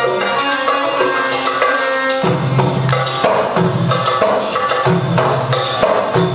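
Middle Eastern belly dance music: a melody over a steady drum rhythm, with a fuller, deeper accompaniment coming in about two seconds in.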